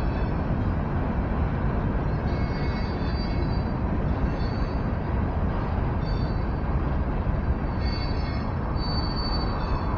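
Freight train rolling through a road level crossing: a steady rumble of wheels on rail, with faint high tones coming and going above it.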